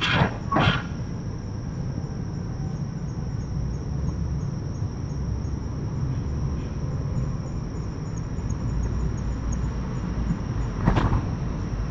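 Sharp knocks or clacks of banging from a neighbouring house, two in quick succession at the start and one more near the end. Behind them run a steady low rumble and the continuous high trill of insects chirping.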